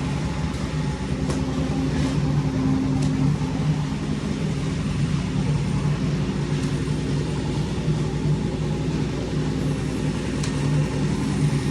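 Engine of construction machinery running steadily, a constant hum with a few faint clicks over it.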